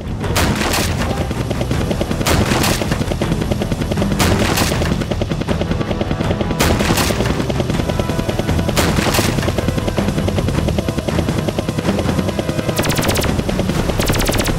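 Attack helicopter sound effects: a steady rotor chop throughout, with pairs of loud shots about every two seconds, then two quick bursts of machine-gun fire near the end.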